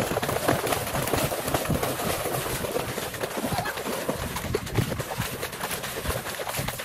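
Running footsteps splashing through shallow water: a quick, uneven run of splashes as feet strike and kick up water.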